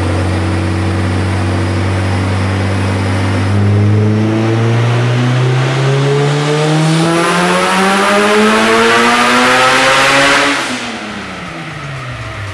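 Honda Integra's four-cylinder engine on a Dynojet chassis dyno. It holds steady revs for about four seconds, then makes a full-throttle pull with the revs climbing smoothly for about six seconds. Near the end the throttle shuts sharply and the revs fall away.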